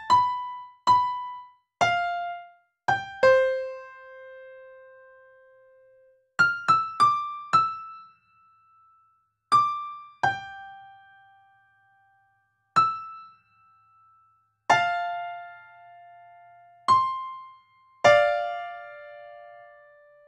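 Background music: a piano playing slow, sparse single notes and chords. Each one is struck and left to ring out and fade, with pauses of a second or more between phrases.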